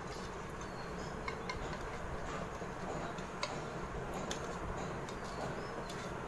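A metal spoon beating eggs into milk in a bowl: irregular light clicks and taps of the spoon against the bowl over a steady hiss.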